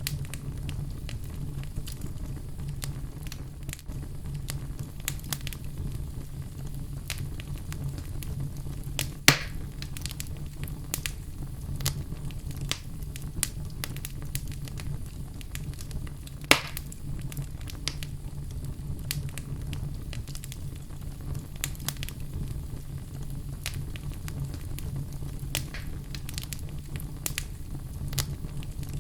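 Outdoor fire burning with frequent crackling over a steady low rumble, and two louder sharp pops, about a third of the way in and just past halfway.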